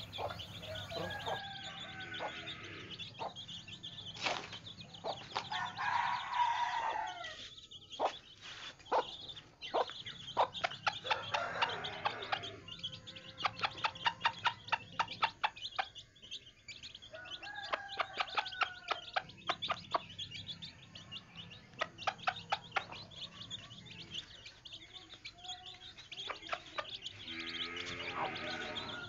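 Domestic chickens clucking and calling, with many quick, sharp taps clustered through the middle.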